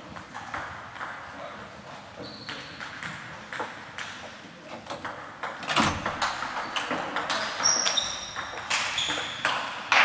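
Table tennis balls clicking off bats and tables: scattered clicks throughout, then a quick run of louder ones from about six seconds in as a rally is played.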